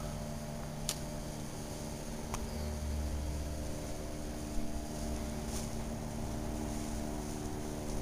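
Steady mechanical hum made of several steady tones, with a brief low rumble about three seconds in and a couple of faint clicks.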